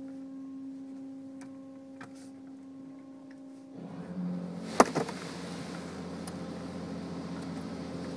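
Rollover car wash machine heard from inside the car: a steady hum for about four seconds, then the noise of water and wash equipment working over the car rises and holds. A sharp knock comes just before five seconds in, with a smaller one right after.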